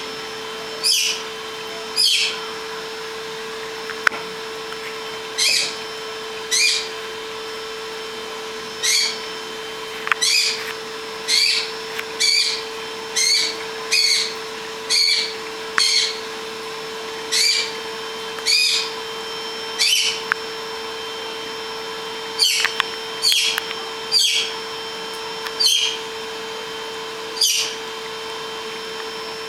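A steady hum with short, high chirps that fall quickly in pitch, repeating at irregular gaps of a second or two, like a small bird calling.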